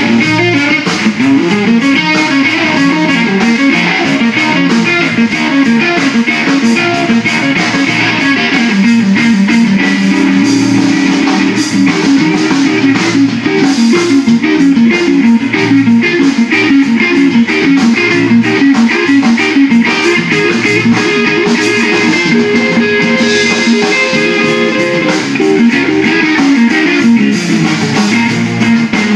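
A live blues band plays an instrumental stretch without vocals: electric guitar over bass guitar and drums.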